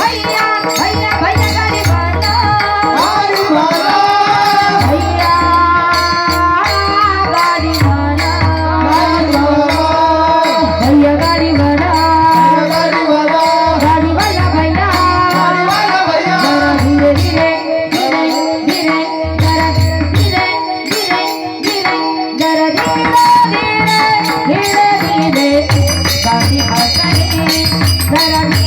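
A woman singing a song with hand-drum accompaniment, the drum playing in repeated low strokes under her voice.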